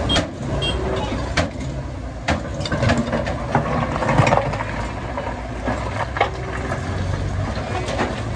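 Heavy diesel machinery running with a steady low rumble, with repeated sharp knocks and clanks scattered unevenly through it.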